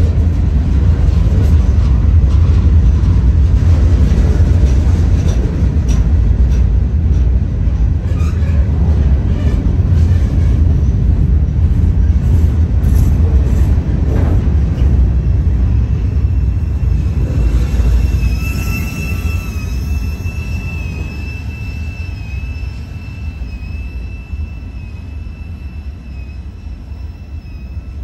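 Freight train's cars rolling past at close range with a heavy low rumble of wheels on rail. About two-thirds through, a high steady wheel squeal sets in and holds while the rumble fades as the end of the train draws away.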